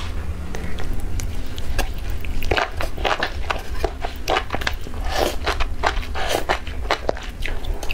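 Close-miked chewing and biting of a mouthful of enoki mushrooms in chili oil: a dense run of quick wet crackles and crunches, over a steady low hum.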